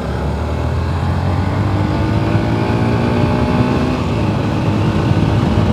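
Motorcycle engine running steadily while the bike is ridden at speed, its note rising a little near the end.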